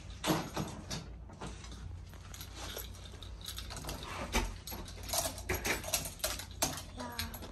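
Scattered light clicks, knocks and rustles of bags and belongings being handled and carried, with a few sharper knocks about four to five seconds in.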